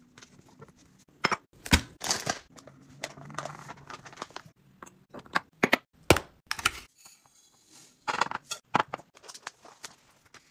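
Glass storage jars with bamboo lids being handled on a hard countertop: a string of sharp taps, clicks and knocks, with two short bursts of rustling, about two seconds in and again about eight seconds in.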